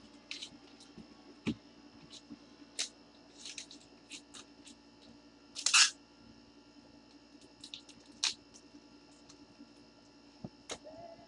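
Light scattered clicks and ticks of trading cards and their plastic holders being handled, with a louder brief rustle about six seconds in, over a faint steady hum.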